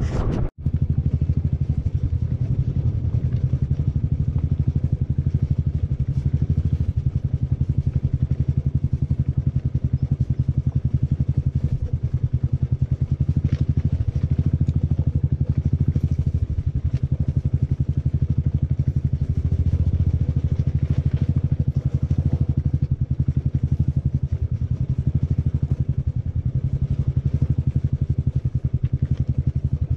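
Royal Enfield Classic 500's single-cylinder engine running steadily as the motorcycle rides over loose rocks, with occasional knocks and rattles from the stones and the bike. The sound drops out for an instant about half a second in.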